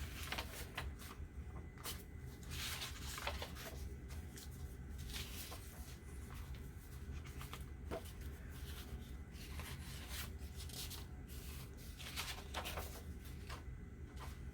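Sheets of paper being handled and shuffled: scattered rustling with light taps.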